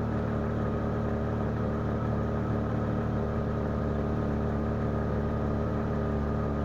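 1999 Jeep Cherokee XJ engine idling steadily.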